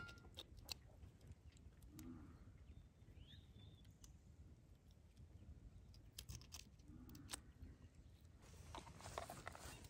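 Faint crunching and squelching of a kitchen knife cutting open and gutting a small raw fish, in scattered short clicks and crackles that come thicker near the end.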